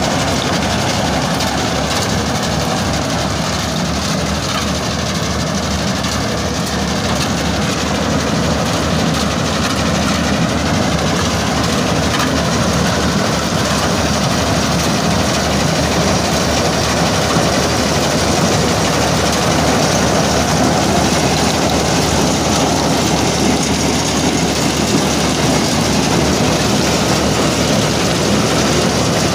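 Tractor-mounted maize harvester running steadily while cutting and threshing standing maize: continuous engine and machinery noise that holds at an even level.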